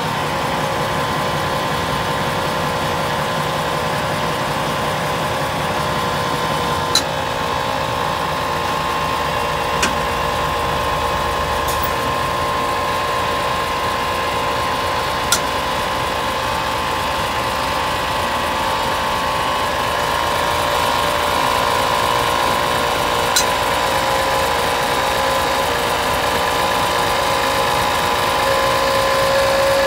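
Hino Profia truck's diesel engine idling steadily, with a steady whine over it and a few sharp clicks.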